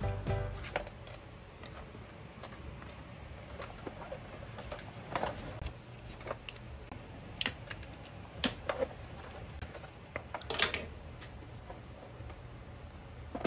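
Scattered light clicks and a handful of sharper knocks as motorcycle plastic parts and fasteners are worked loose and handled during front-end disassembly, over a low steady hum.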